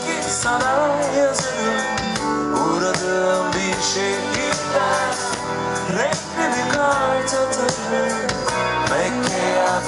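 Live rock band playing an instrumental passage between verses, with acoustic and electric guitars, bass and drums, and a melodic lead line bending up and down in pitch over the steady chords.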